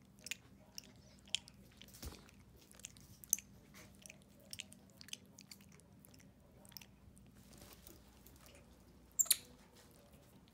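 White-faced capuchin monkey licking and chewing at a hard-candy lollipop: wet mouth clicks and smacks at uneven intervals, with one sharper, louder sound about nine seconds in.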